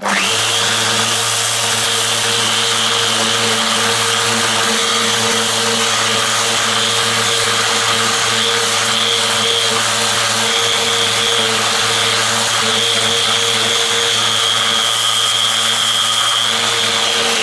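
Electric random orbital sander running steadily against a steel fire plate, grinding the surface: a constant motor hum with a high whine. It comes up to speed right at the start.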